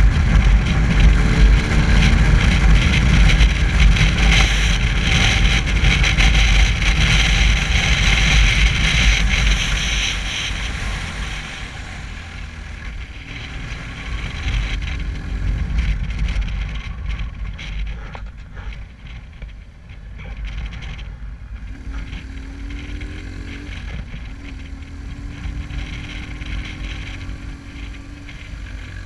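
Motorcycle riding along a winding road, wind rushing over the camera microphone on top of the engine's low rumble. About ten seconds in the wind noise drops away, leaving the engine note rising and falling.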